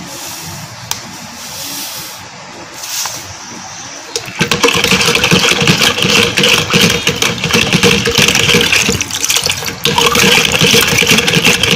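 Powdered drink mix pouring through a small metal strainer with a soft hiss; about four seconds in, an electric hand blender switches on and runs steadily in the liquid, mixing the powder into the water.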